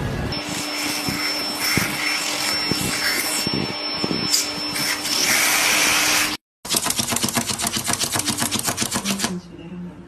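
Vacuum cleaner running steadily for about six seconds, with its nozzle held to a cat, then cutting off suddenly. After a short gap comes a fast, even run of clicks for about three seconds, then it goes quieter.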